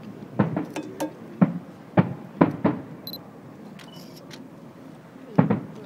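Aerial fireworks shells bursting: a string of about nine sharp bangs, most of them in the first three seconds and one more near the end.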